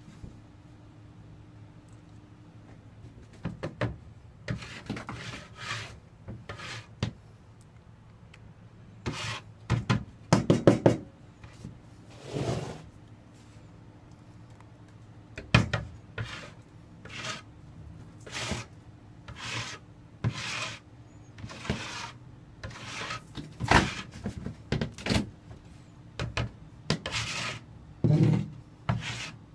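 A notched steel trowel scraping and spreading vinyl tile adhesive across an OSB countertop. It makes a series of irregular rasping strokes, each under a second, that start a few seconds in.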